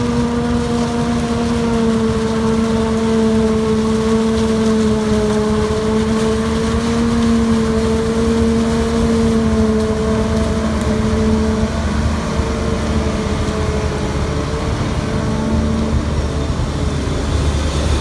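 Claas Jaguar self-propelled forage harvester running under load while it chops silage corn and blows it into a truck, a loud steady drone with a clear held hum that fades out near the end.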